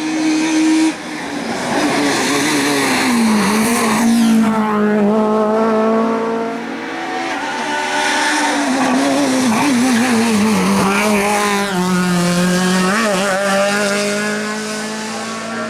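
Racing car engine at high revs, climbing in pitch and dropping sharply at each upshift, with the main drops about 3 and 12 seconds in.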